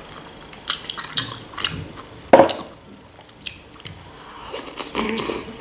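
Close-miked chewing of a sausage: wet mouth noises and lip smacks broken by a few sharp clicks. The loudest click comes about two and a half seconds in, and another burst of clicks comes near the end.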